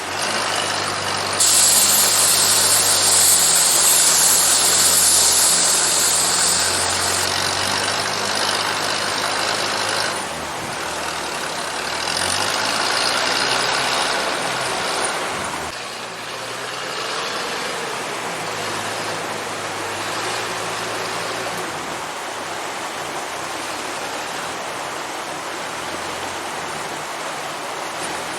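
Old Soviet ZIL-164 truck's six-cylinder side-valve petrol engine running, its pitch rising and falling as the engine works. A loud hiss sounds from about a second and a half in until about seven seconds.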